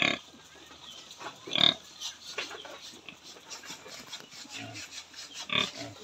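Yorkshire sow and her suckling piglets grunting and squealing, with three louder short cries: at the start, about a second and a half in, and near the end.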